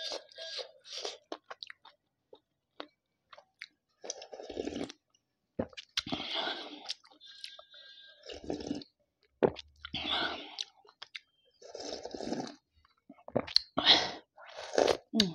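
Close-miked slurping and swallowing of the last of a bowl of chicken soup drunk straight from the tipped bowl, in about seven separate sips a second or two apart. A few light clicks come before the sipping starts.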